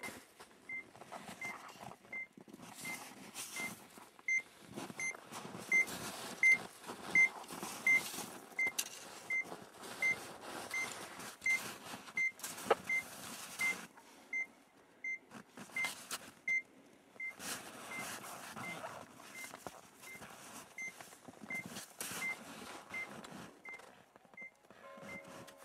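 Avalanche transceiver (ARVA) in search mode, beeping as it picks up a buried transmitter: a short high beep about every three-quarters of a second, loudest about a quarter of the way in. Underneath is irregular scuffing and rustling of hands and gear in the snow.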